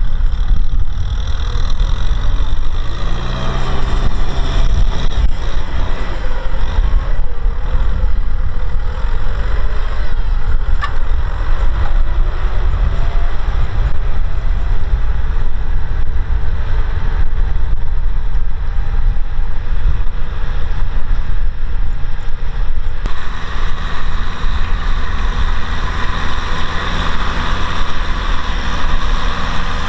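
Kubota M6040SU tractor's diesel engine running steadily under load while it pulls a disc plough through dry soil. The engine pitch rises briefly a few seconds in, and the sound changes abruptly about three-quarters of the way through.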